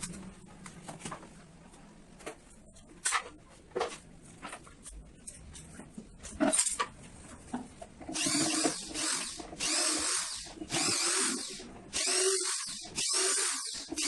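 Electric drill-driver run in a series of short bursts, backing screws out while the speakers are unmounted from a car-audio speaker box, fast-forwarded. Scattered clicks and knocks of handled parts come first; the drill bursts, about seven in a row, start a little past halfway.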